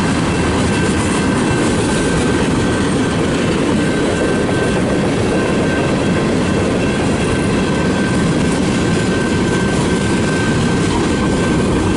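Freight cars of a long mixed-freight train rolling past: a steady, loud rumble of steel wheels on rail, with a thin steady high whine held throughout.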